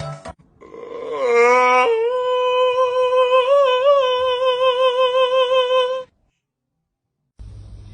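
One long, held voice-like note: it slides up at first, then holds steady with a slight wavering for about four seconds before cutting off abruptly, followed by dead silence.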